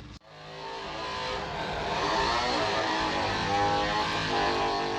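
An engine running with its pitch wavering as it revs. It fades in just after a sudden cut and fades out near the end.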